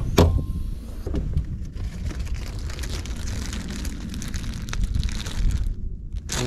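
Tackle being rummaged in a boat's storage locker: a plastic zip-top bag of soft-plastic worms crinkling and rustling as it is handled, with a sharp knock just after the start. A steady low rumble runs underneath.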